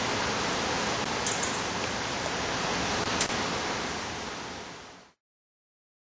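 Steady hiss-like background noise with a few faint clicks. It fades out from about four seconds in and ends in silence just after five seconds.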